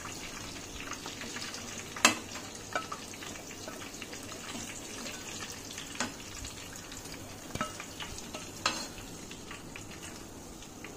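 Chicken lollipops frying in rice bran oil in a non-stick pan, a steady sizzle, with a few sharp taps of a metal spatula scattered through.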